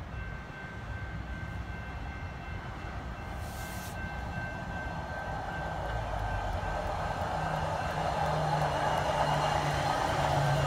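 Hi-rail pickup truck running along the railway track on its tyres and steel guide wheels, approaching and drawing level, growing steadily louder. There is a rumble of wheels on rail, engine hum in the last few seconds, and a thin steady high whine throughout.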